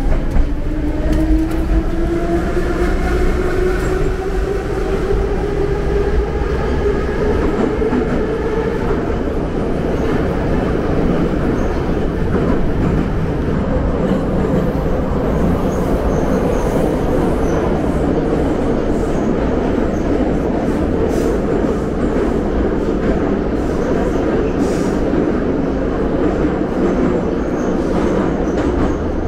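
St. Petersburg metro train heard from inside the carriage: the electric traction motors whine, rising in pitch as the train picks up speed over the first several seconds, then give way to a steady, loud running noise of the carriage at speed.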